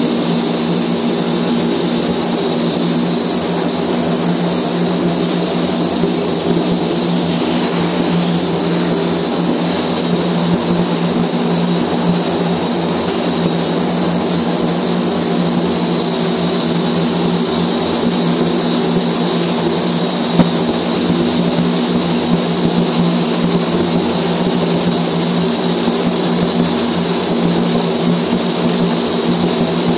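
Overhead flux-cored arc welding in a steel ship compartment: the arc burning steadily under a constant machine roar with a low hum and a high whine that dips briefly about eight seconds in. One sharp click about twenty seconds in.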